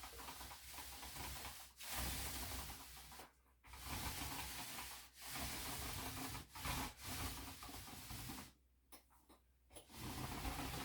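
Paint roller rolling primer onto drywall: a rasping swish in strokes of a second or two, with short breaks between them and a longer pause near the end.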